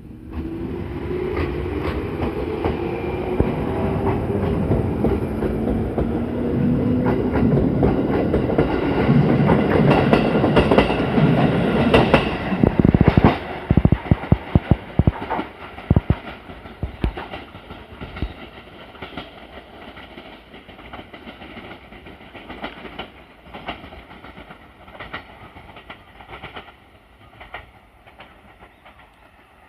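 JR 211 series electric train pulling away from the station: its motor whine rises in pitch as it gathers speed and grows louder. About halfway through, the wheels clatter over rail joints in a quick run of knocks, then the rumble and clicking fade as the train moves off.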